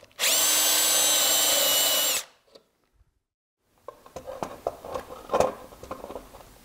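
18 V cordless drill with a hole saw boring into a white plastic wall box: the motor runs at a steady pitch for about two seconds, then stops. After a short silence come a few light clicks and knocks of handling and screwdriver work.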